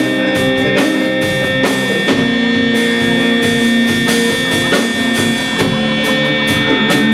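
Rock band instrumental break with electric guitar and drum kit. Several steady high-pitched tones hold unchanged underneath the music throughout.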